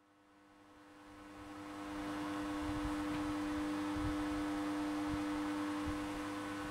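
Steady electrical hum with one strong pitched tone, fading in over about the first two seconds, with a few low thumps underneath.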